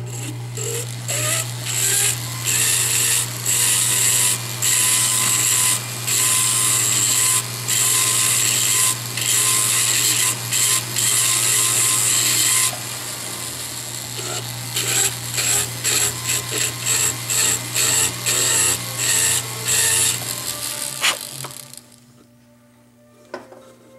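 Small rotary motor spinning a bur with a steady low hum, the bur grinding harshly in short on-and-off passes as it cuts into the metal bezel setting to enlarge the seat for a cabochon. The motor stops near the end.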